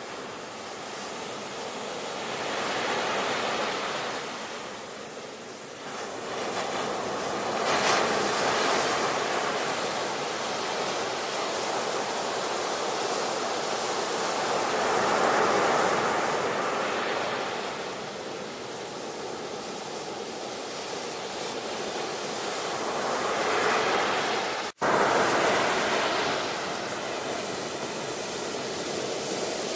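Ocean surf: waves breaking and washing in a steady hiss that swells and ebbs every several seconds. A split-second dropout cuts the sound about twenty-five seconds in.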